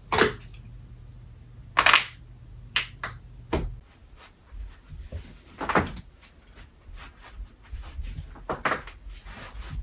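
Human joints cracking: a series of sharp, loud pops and cracks as the back, neck or knuckles are cracked, several large ones with smaller clicks between.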